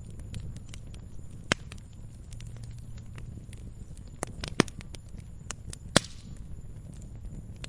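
Campfire crackling: irregular sharp pops and snaps of burning wood over a low, steady rumble of the flames. The loudest snaps come about halfway through and again about six seconds in.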